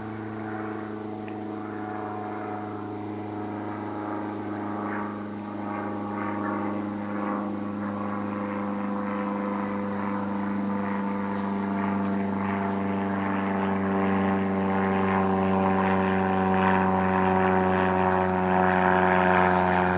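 A steady engine drone at an even pitch, slowly growing louder.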